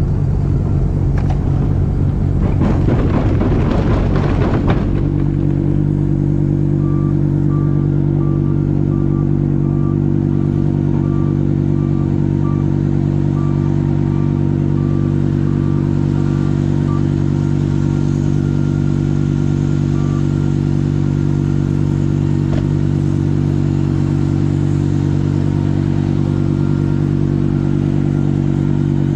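Trackless MT6 tractor's diesel engine running with its snowblower. For about the first five seconds a rough rushing of thrown snow lies over the engine note, then a steady, even engine drone. A faint beep repeats a little more than once a second for several seconds in the middle.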